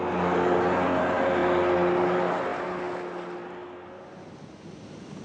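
A motor vehicle passing: a rushing noise over a steady engine hum that swells right at the start, then fades away over the next couple of seconds.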